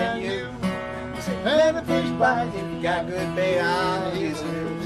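Acoustic guitar strumming a blues rhythm while a harmonica plays the lead line with bent notes, in an instrumental break.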